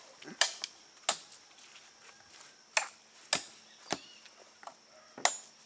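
Machete chopping into the husk of a young green coconut: about half a dozen sharp chops at uneven intervals, with a few lighter taps between them.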